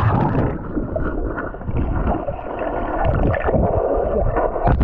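Underwater sound picked up by a submerged GoPro HERO9 in its waterproof housing: a dense, muffled rumble of moving water with gurgling and no high end. There is a brief louder burst near the end.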